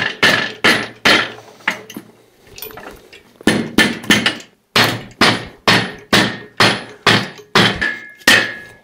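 Hammer blows on metal at the rear of an Isuzu 4BD1T diesel engine, about three sharp strikes a second, some ringing briefly, with a short let-up around two to three seconds in.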